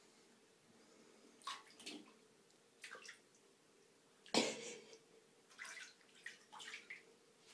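Kittens' paws splashing in shallow water in a bathtub: a string of short, separate splashes, the loudest a little past halfway.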